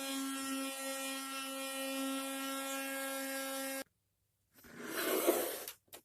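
Electric oscillating multi-tool sander running with a steady high buzz, sanding down a proud edge of a loudspeaker back panel to make it flush, then switched off suddenly near four seconds in. A short rushing noise follows about a second later.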